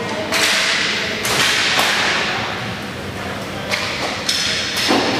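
Inline hockey play: sticks and the puck knocking against each other and the rink boards, about half a dozen sharp cracks and thuds at uneven intervals over a steady rink noise.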